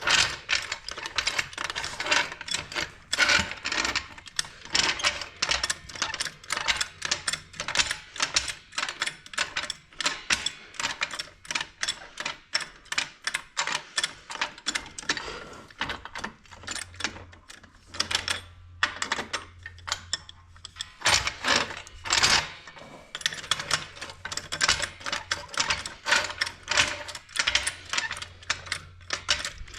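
Hand ratchet wrench clicking in quick runs of many small clicks, with a few short pauses between runs.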